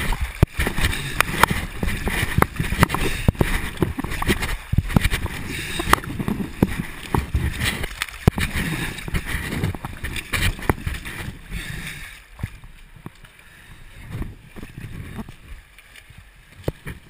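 Fast river water rushing and splashing right at the microphone as it is dragged through the current at the surface, with many sharp slaps of water. After about twelve seconds it settles to a quieter, intermittent gurgle.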